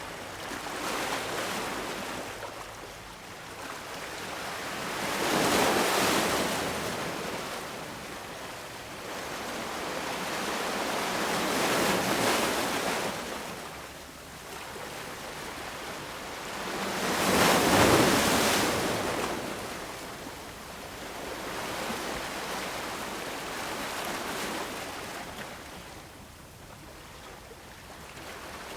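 Small waves washing against harbour rocks, each swell rising to a rush of water and falling back every few seconds, the largest about halfway through.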